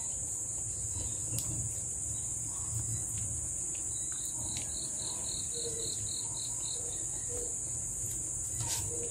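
Insects trilling in a steady high-pitched chorus, with a short run of about nine quick high chirps around the middle and a few faint clicks.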